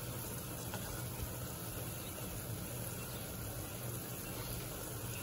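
Steady hiss with a constant low hum underneath and no distinct events.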